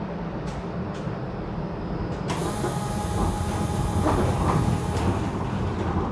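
A TTC Flexity Outlook streetcar running, its low rumble broken by a few sharp clicks, likely wheels passing over rail joints. About two seconds in, a sudden loud hiss starts and fades away over the next few seconds, with a faint steady whine beneath it.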